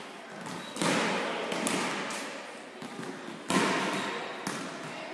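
Volleyballs being struck and bouncing on a wooden sports-hall floor, each hit echoing in the large hall, with two loud ones about a second in and about three and a half seconds in.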